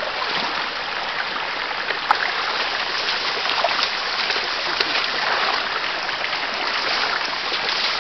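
Shallow stream running fast over stones and a fallen log, a steady rushing of water, with one short sharp tap about two seconds in.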